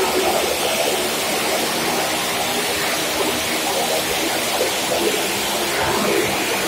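Motorcycle engines running at speed around the wooden wall of a well-of-death drum, a loud, steady, dense drone with no let-up.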